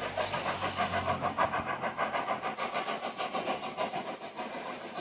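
Southern Railway U class 2-6-0 steam locomotive No. 31806 working hard as it pulls away with its train. Its exhaust beats come quick and even and slowly grow fainter as it draws away.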